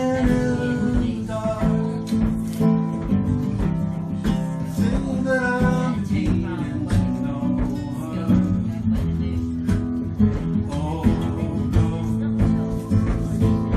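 Background music led by acoustic guitar, strummed and plucked.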